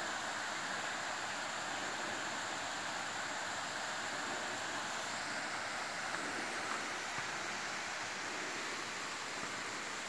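Steady, even rushing of a jungle waterfall.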